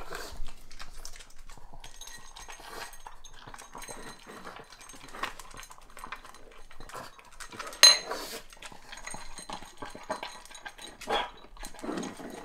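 A pug eating dry kibble from a ceramic bowl: irregular crunching and snuffling, with the bowl clinking now and then and one sharp clink about eight seconds in.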